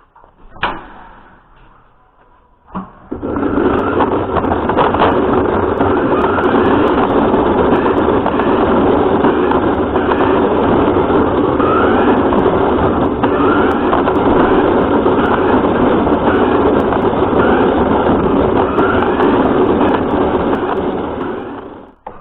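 Radio-controlled car running, its motor and drivetrain giving a loud, steady whir. It follows two sharp clicks in the first three seconds and cuts off just before the end.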